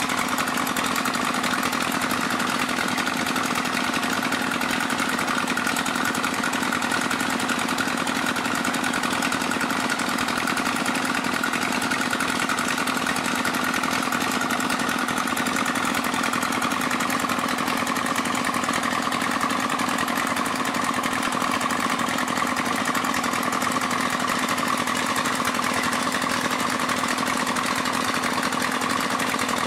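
Small engine of an Alkon pump running steadily at a constant speed, a continuous drone while the pump draws up sand.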